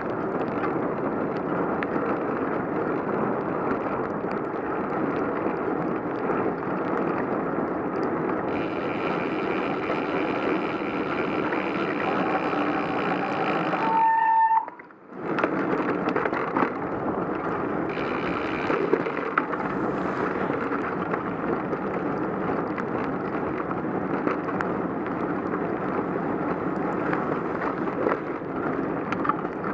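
Steady rushing noise of a bicycle riding on wet roads in the rain: tyre spray and wind on the microphone. About halfway through, the wet metallic-pad disc brakes give a brief squeal, and then the noise drops away for about a second before the riding noise returns.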